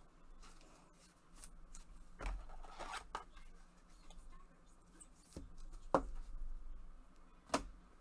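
Faint rustling and a few light clicks and taps as a trading card in a plastic sleeve is handled and set aside, the loudest taps near the end.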